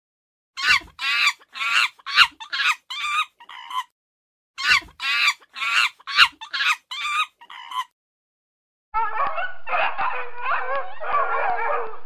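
Two bouts of rapid, repeated animal calls, each about three seconds of short pitched notes growing fainter toward the end. After about a second's pause, a puppy whimpering and howling in wavering cries for about four seconds.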